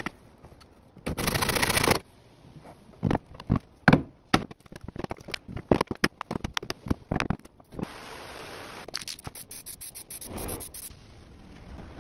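Hand-tool work on a wooden chest of drawers. A loud scrape about a second in, then a fast, irregular run of sharp knocks as a hammer strikes the wooden carcass, then a longer stretch of scraping.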